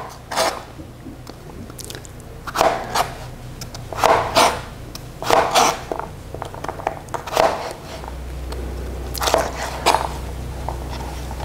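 Kitchen knife dicing raw potato on a plastic cutting board: crunchy cuts through the potato, each ending in a knock of the blade on the board, coming singly or in pairs at an uneven pace.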